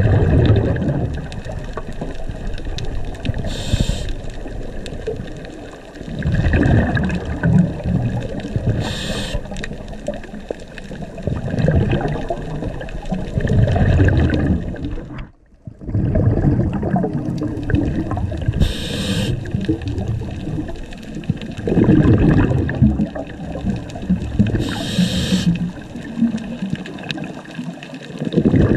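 A scuba diver breathing through a regulator underwater: a short hiss of inhalation about every six seconds, each followed by a longer low rush of exhaled bubbles. The sound drops out briefly about halfway through.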